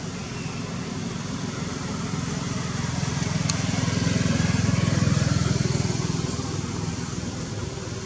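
A motor vehicle passing: a low engine rumble that swells to a peak about halfway through and fades again, with one sharp click near the middle.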